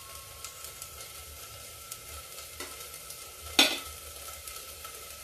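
Ginger-garlic-chilli masala paste sizzling steadily in hot mustard oil in a steel pot over a high gas flame. A sharp clack about three and a half seconds in, with a softer knock a second before it.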